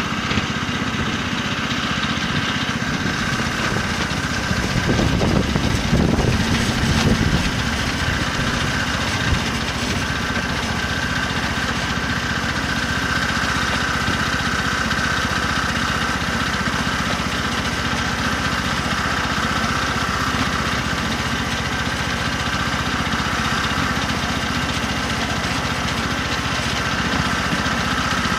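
Miniature 7¼-inch gauge BR Class 03 shunter outline locomotive running along the track, its small engine droning steadily with a steady high tone over it. The sound grows louder for a couple of seconds about five seconds in.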